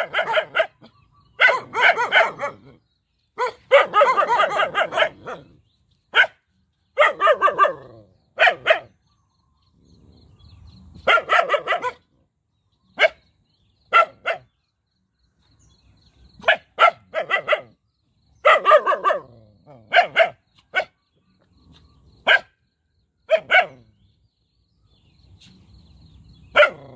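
Young dogs barking in quick runs of several barks, with short pauses between runs and two quieter lulls, about a third of the way in and near the end.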